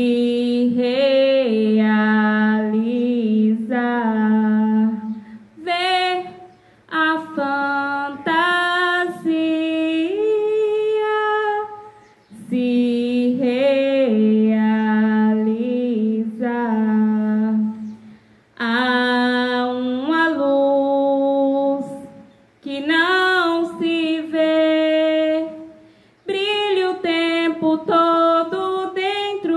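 A woman singing unaccompanied into a handheld microphone: long held notes in phrases of a few seconds, with short pauses for breath between them.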